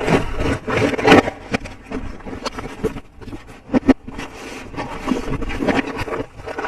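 Hands handling plastic toy pieces and packaging: irregular scraping and rubbing, with a sharp click about four seconds in.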